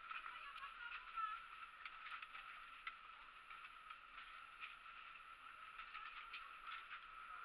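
Near silence: faint, muffled background noise with a steady hum and a few light clicks scattered through it.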